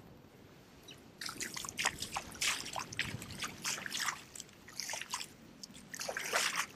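Bare feet wading through shallow water over sand, splashing and dripping with each step, starting about a second in.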